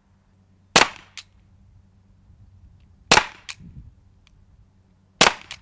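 Umarex Glock 17 Gen5 .43-calibre CO2 paintball pistol firing three single shots about two seconds apart, each a sharp pop followed a moment later by a fainter click.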